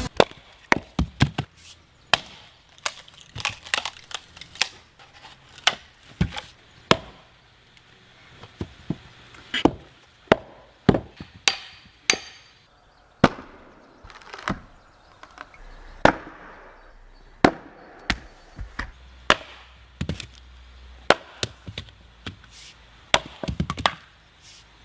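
Chopping strikes of an axe blade into firewood: many sharp knocks, unevenly spaced, some coming in quick pairs or clusters.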